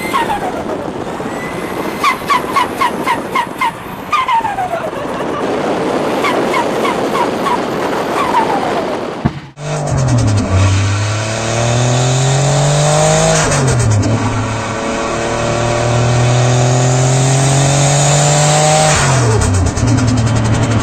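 Turbocharged car engine: first it lets off with falling whooshes and a rapid stuttering chatter, the turbo flutter of compressor surge when the throttle closes. Then an engine pulls hard with its pitch climbing, dropping sharply twice at gear changes.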